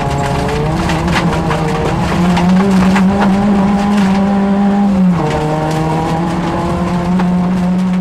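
Rally car engine at high revs, heard from inside the cabin on a gravel stage. The pitch climbs, drops sharply about five seconds in at a gear change, then climbs again, with sharp clicks of gravel striking the car's underside throughout.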